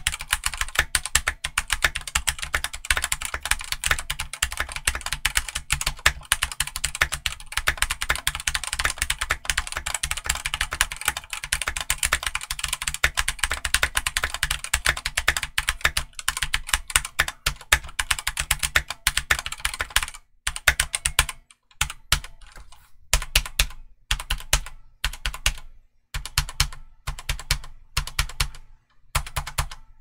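Risophy PC395 full-size mechanical keyboard with linear Outemu Red switches and OEM-profile ABS keycaps, typed on quickly and continuously. About two-thirds of the way in the typing changes to short bursts of keystrokes with brief pauses between them.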